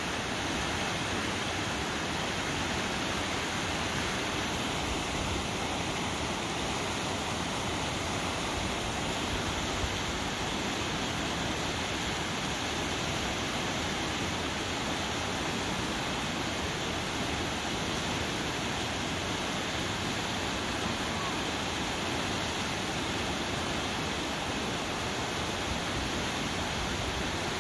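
Steady rushing of river water, an even wash of noise that holds level without a break.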